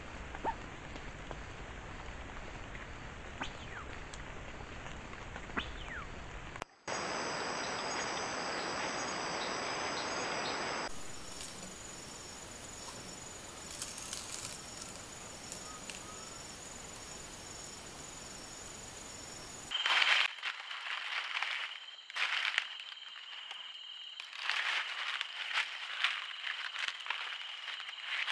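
Trail-camera sound at night: a steady high insect call with repeated crackling and rustling of dry leaf litter as a giant anteater forages. Before it, only a steady outdoor hiss.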